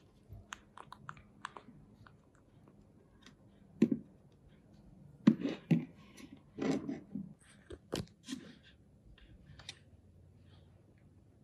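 Scattered small clicks and taps as a baby monkey handles a plastic TV remote on a wooden tabletop. A few louder knocks come between about four and eight seconds in.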